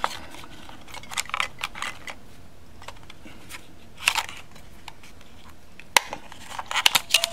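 AA batteries being handled and pressed into a clock radio's plastic battery compartment: scattered small clicks and rattles, with a sharper click about six seconds in and a quick run of clicks near the end.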